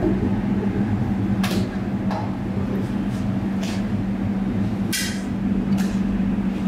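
Steady low mechanical hum, like a fan or motor running, with a few short knocks and scrapes of handling scattered through it.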